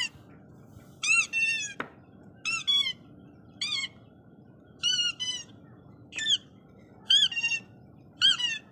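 A recorded squeaking sound played back for a dog: seven short, high squeaks, one about every second. Each squeak rises and then falls in pitch.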